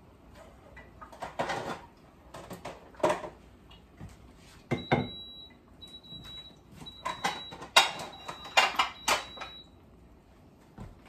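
Kitchenware being handled at a sink and counter: a series of clatters and knocks, with several ringing clinks of glass or metal in the later half.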